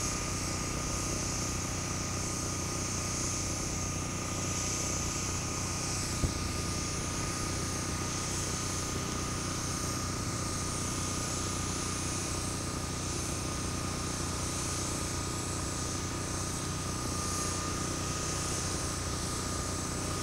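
Steady engine and cabin hum of a vehicle heard from inside, with a constant high whine over it and one short click about six seconds in.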